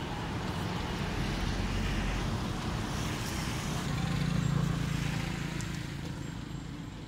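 Motor vehicle engine hum, low and steady, swelling about four seconds in and fading away toward the end, like a vehicle passing.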